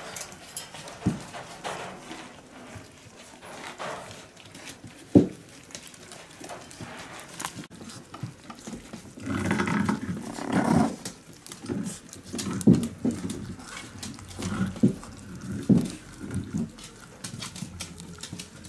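Miniature pinscher puppies squeaking and growling over a whole rat they are feeding on, in short repeated bursts from about halfway through. A single sharp knock about five seconds in.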